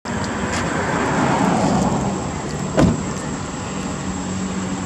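Steady rumble of a passing motor vehicle, an engine hum over road noise that swells and eases off, with one sharp click a little under three seconds in.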